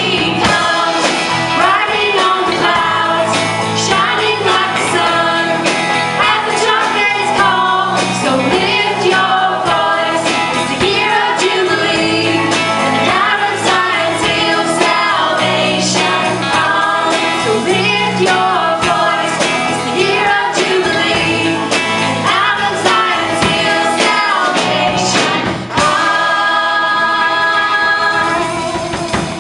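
Church vocal group singing a gospel worship song over band accompaniment, with a steady beat of drum hits. Near the end they hold a long final chord.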